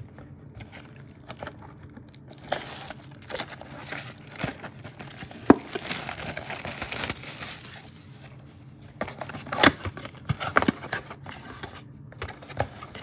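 Plastic wrapping on a cardboard trading-card box crinkling and tearing as the box is unwrapped, with a denser stretch of crackling in the middle and a few sharp knocks of the box being handled.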